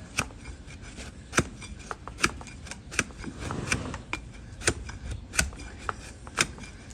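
Donkey's hoof horn being cut with a hoof-trimming blade: a string of sharp, crisp cuts about once a second, with smaller scraping snicks between them.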